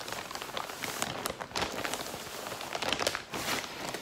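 Clear plastic packaging crinkling and rustling as it is handled, a continuous crackle of fine clicks.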